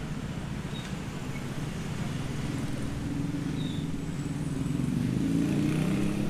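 Steady low engine rumble of a motor vehicle, growing louder near the end.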